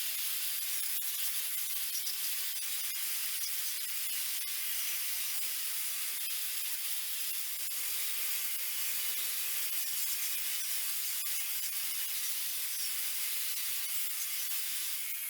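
Power-driven wire wheel scrubbing the metal base of a Reed vise: a steady, hissy scouring over a faint motor hum that holds constant.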